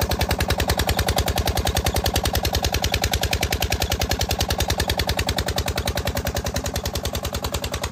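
Old 8 hp Petter diesel engine running steadily under load, driving a belt-driven well water pump. Its exhaust chugs in a fast, even beat of about nine pulses a second.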